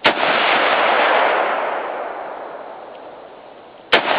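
Two single shots from an AR-15 rifle in .223, about four seconds apart, each followed by a long rolling echo that fades away.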